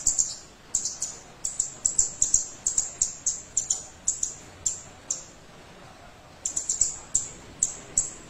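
Caged kemade songbird calling in rapid runs of short, sharp, high chirps, grouped in clusters, with a pause of about a second and a half past the middle.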